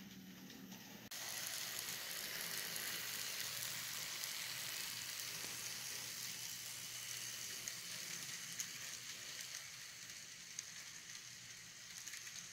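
Model freight train rolling past close by: a steady hissing, crackling rattle of small wheels on the track. It starts abruptly about a second in, fades slowly and carries a few light ticks.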